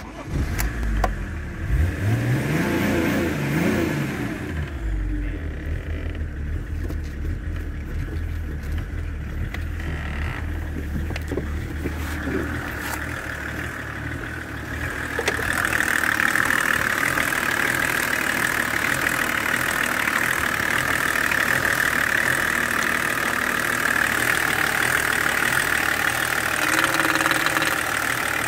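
BMW M51D25 2.5-litre inline-six turbodiesel starting; its revs rise and drop back over the first few seconds, then it idles steadily. About halfway through it gets louder and sharper, heard up close at the open engine bay.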